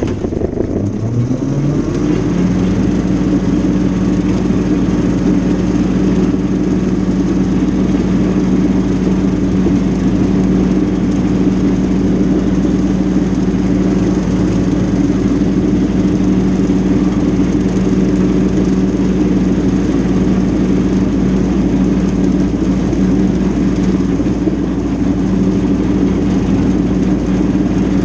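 Mahindra compact tractor's diesel engine running steadily at working speed while its brush hog cuts tall grass. At the start the engine speed drops and climbs back up over about two seconds, then holds steady.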